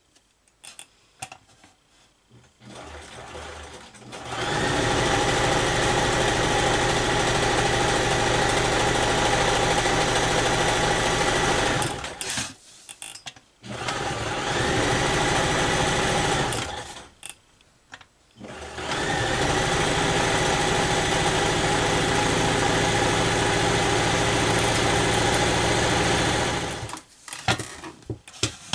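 Electric sewing machine running fast under foot-pedal control in three runs, about eight, three and eight seconds long, each stopping abruptly, with short pauses between. A few light clicks follow near the end.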